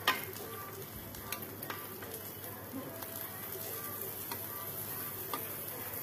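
Pork belly sizzling on a tabletop grill plate, with a few sharp clicks as chopsticks turn the pieces, the loudest just at the start.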